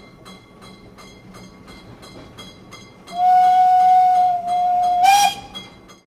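Model railway locomotive sounding a steam-type whistle: one long steady whistle starting about three seconds in, held for about two seconds and lifting in pitch at the very end. Under it runs a light regular ticking of about three to four beats a second.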